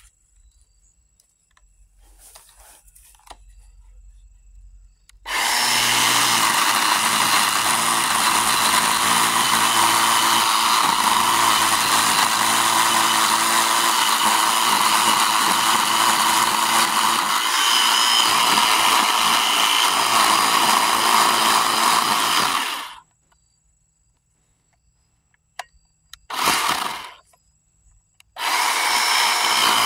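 Craftsman V20 10-inch battery chainsaw cutting into a dense hardwood stump. It starts about five seconds in, runs steadily for some seventeen seconds and stops abruptly. After a brief burst a few seconds later, it starts cutting again near the end.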